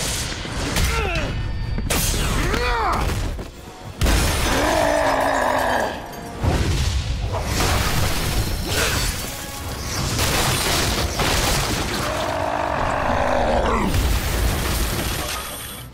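Cartoon fight sound effects over dramatic action music: a string of crashes, booms and sliding whooshes, with wood smashing and splintering, the biggest hits about four and six and a half seconds in.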